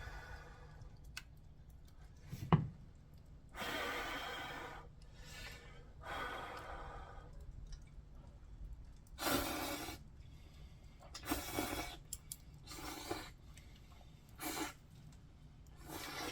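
A person breathing out in a series of short breathy puffs, about seven of them, with one sharp knock about two and a half seconds in.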